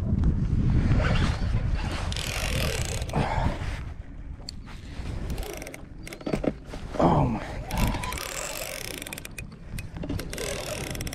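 Fishing reel clicking and ratcheting while a hooked striped bass is fought on the rod, with a low rumble in the first couple of seconds. A few short sliding whine-like tones come about seven seconds in.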